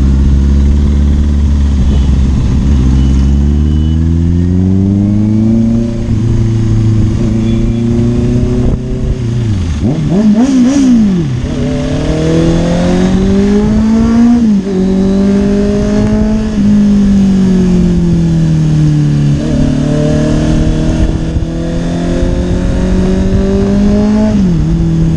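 Honda CBR650R inline-four engine riding through traffic, its note climbing under throttle and dropping back at gear changes several times, with a quick rev blip about ten seconds in.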